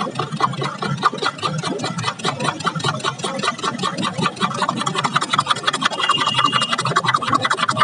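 Metal spoon whisking yogurt in a stainless steel tumbler: rapid, regular clinking and scraping strokes against the steel.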